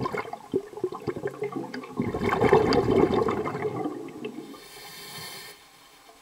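Water gurgling and churning with many small splashy clicks, swelling to a loud rush about two seconds in, then a short hiss before it stops.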